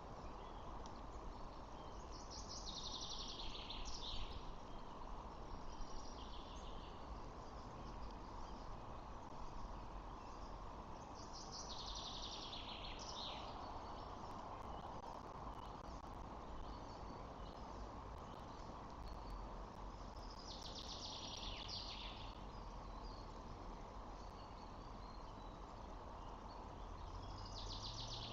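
Steady outdoor background noise with a short, buzzy, fast-pulsed call heard four times, about nine seconds apart.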